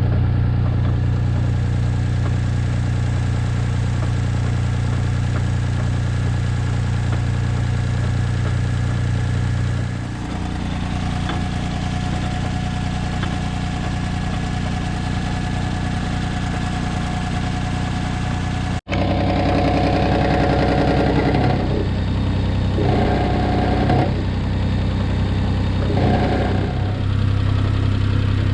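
Daihatsu Esse's small-car engine running steadily. It cuts out sharply for an instant about 19 seconds in, after which the engine note changes several times.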